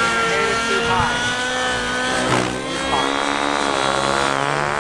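Nitro-engined RC helicopter flying aerobatic passes, its engine and rotor whine holding a steady pitch and then sliding up and down as it manoeuvres and passes by.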